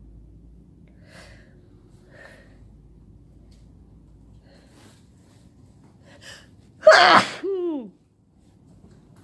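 One loud human sneeze about seven seconds in, just after a short intake of breath. It ends in a voiced cry that falls in pitch. It is part of a sneezing fit from a person who is sick.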